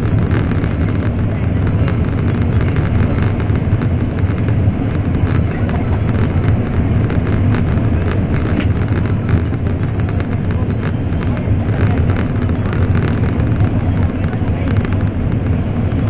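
Steady running noise inside the cabin of an N700 series Shinkansen travelling at speed: a deep continuous rumble with a hiss over it, unbroken.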